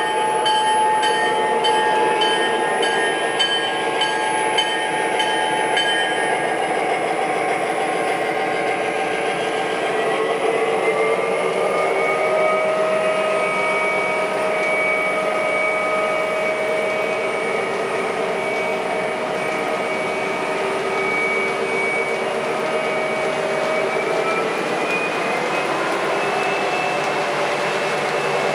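MTH Premier O-gauge Norfolk Southern GP35 model diesel running with its Proto-Sound 2.0 diesel engine sound, over the steady rolling noise of wheels on three-rail track. The engine sound steps up in pitch about ten seconds in and again near the end, like a diesel notching up its throttle.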